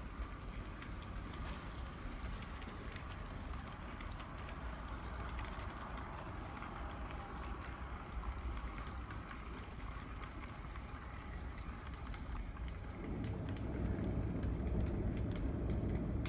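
HO scale model freight cars rolling along the track, a steady rolling noise with light irregular clicks from wheels on the rails. About thirteen seconds in, a louder low rumble comes in and holds.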